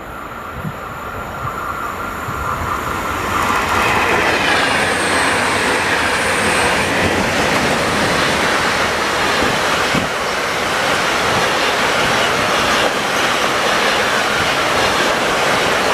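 Freight train of double-deck car-carrier wagons rolling past close by, the rail noise building over the first few seconds and then holding steady. A short high wheel squeal comes about five seconds in, and there are occasional clicks of wheels over rail joints.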